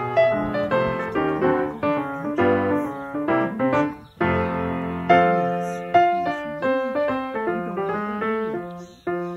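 Background piano music, single notes and chords struck in turn and dying away.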